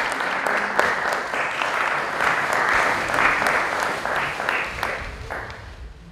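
Audience applauding, a dense patter of clapping that fades away over the last two seconds.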